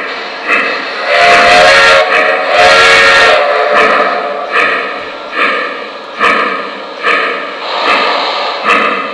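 O gauge model three-truck Shay steam locomotive's onboard sound system: two short steam-whistle blasts about a second in, over steady steam chuffs that come a little over once a second as the engine runs.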